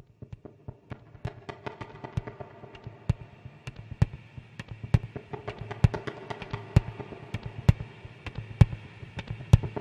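Minimal techno track opening: dry, irregular clicks and crackles over a low hum and a faint held tone. From about three seconds in, a heavier low hit lands a little under once a second, and the whole slowly grows louder.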